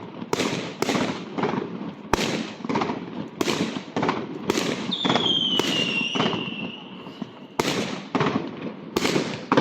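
Fireworks going off in a run of sharp bangs, roughly one or two a second. About halfway through, a high whistle from a whistling firework sounds for a couple of seconds, sliding slightly down in pitch.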